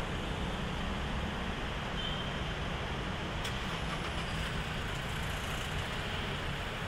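Steady traffic noise, a low rumble of vehicles with road hiss, with a single brief click about three and a half seconds in.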